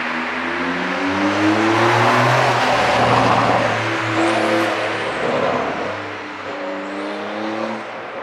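Porsche 911 (992) Carrera 4S twin-turbo flat-six running with its exhaust flaps fully open under an ECU tune. The engine note climbs in pitch, falls back, holds and then climbs again, like a car pulling through its gears.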